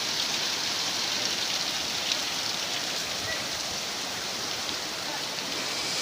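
Shallow river water rushing steadily over rocks.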